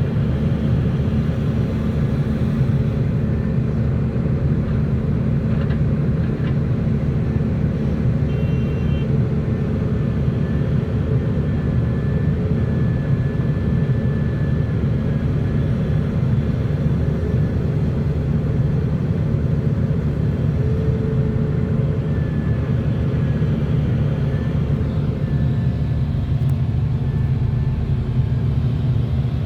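Heavy machinery's engine running steadily, a constant low rumble, with faint brief whines now and then.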